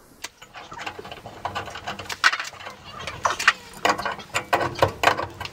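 Irregular metal clicks, knocks and scrapes as a copper pipe is fitted into a threaded adapter by hand.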